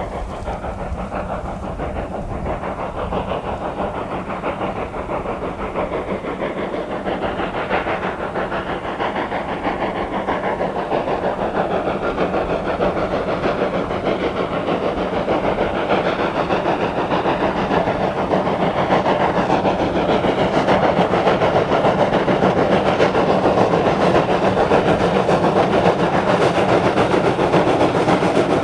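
Train running by, a steady rumble and hiss of rolling train noise that grows gradually louder as it approaches.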